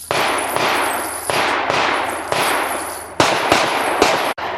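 A string of pistol shots, about eight or nine, irregularly spaced, some close together, each with a long echoing tail.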